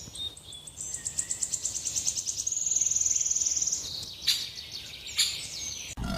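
High-pitched rapid chirping trill from a small animal. The pulses run together into a steady trill for about a second in the middle, followed by a couple of short sharp clicks.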